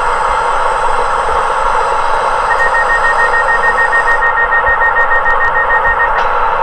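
Model train sound decoder playing a diesel engine running through a small, tinny speaker. A rapid, steady beeping joins in about a third of the way through and stops shortly before the end.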